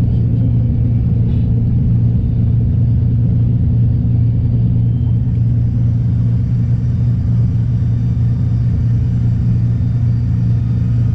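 Steady drone of a Cessna 310R's twin six-cylinder Continental engines and propellers at low power, heard from inside the cockpit as the plane rolls out and slows on the runway after landing.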